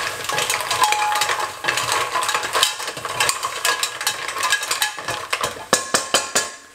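Raw mussels in their shells stirred with a wooden spoon in a stainless steel pot, the shells clattering against each other and the pot in a dense run of clicks that thins to a few separate knocks near the end.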